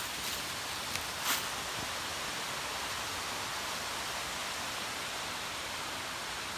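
Waterfall rushing steadily: an even, constant hiss of falling water, with a couple of brief clicks about a second in.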